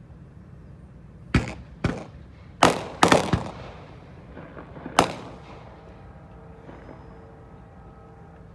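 About six sharp bangs in under four seconds, several in quick succession and the last one on its own, each trailing off briefly.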